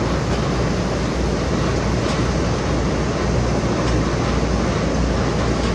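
A stainless-steel potato washing machine running: a steady mechanical rumble over a constant low hum.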